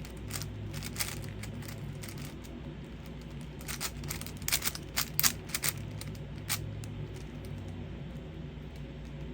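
5x5 Rubik's cube being turned, its plastic layers clicking and clacking in scattered turns, with a quick flurry of louder clicks from about four to six seconds in, over a steady low hum.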